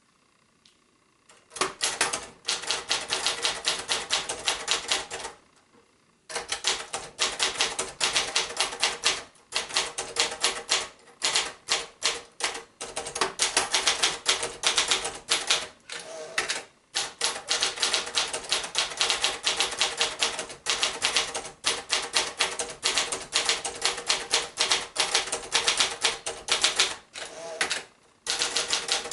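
Brother JP-7 lightweight manual typewriter, in a 1977 Escort 350 body, being typed on in quick runs: rapid clacks of keys and typebars striking, starting about a second and a half in, with a short pause partway through and another near the end.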